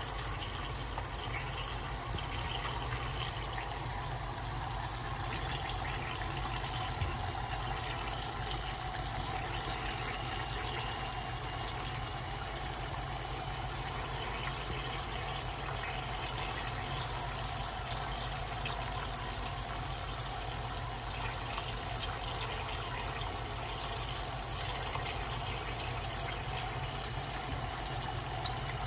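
Dry ice sublimating, most likely in water: a steady bubbling hiss with scattered small pops.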